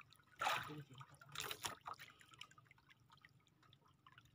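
Sea water lapping and splashing against the hull of a small outrigger boat, with two louder splashes in the first two seconds and fainter lapping after.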